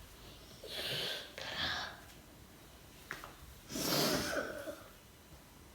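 A sleeping baby snoring: two noisy, snorting breaths, the second, about four seconds in, the loudest.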